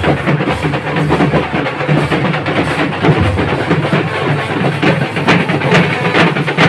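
Indian brass band (band baaja) playing loudly: bass drums and snare drums beat a steady, driving rhythm with brass over it, and the sharp drum strokes grow more prominent near the end.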